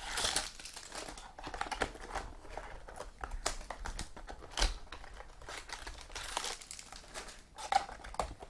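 Plastic card packaging crinkling as trading cards are unwrapped and handled, with scattered small clicks and taps and two louder taps, one about halfway through and one near the end.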